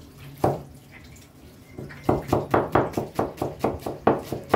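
Knife finely slicing a red onion on a plastic cutting board, the blade knocking the board in quick even strokes, about five a second. One stroke comes about half a second in, then a pause of over a second, then steady slicing resumes about two seconds in.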